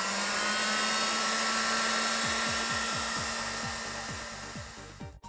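Heat gun blowing steadily: fan and hot-air hiss as it heats a solder-seal butt connector to melt its solder onto a brake pad wear sensor wire. The sound cuts off briefly near the end.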